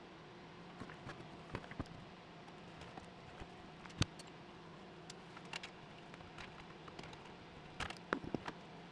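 Scattered light clicks and taps of small hard objects being handled, with a sharper knock about four seconds in and a quick run of clicks near the end, over a faint steady hum.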